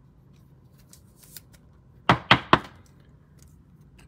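Three quick, sharp knocks about two seconds in, like trading cards or a card holder rapped on the tabletop, with faint clicks and rustles of cards being handled.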